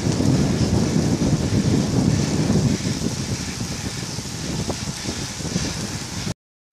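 Wind buffeting the microphone of a camera carried by a rider in a group of road cyclists, a low fluctuating rumble with a hiss above it; it cuts off abruptly near the end.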